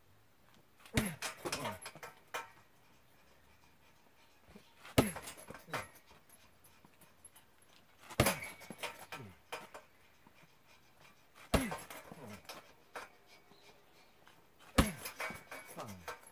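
A hanging heavy punching bag kicked five times, about three to four seconds apart. Each sharp thud is followed by about a second of rattling and squeaking from the bag's hanger as it swings.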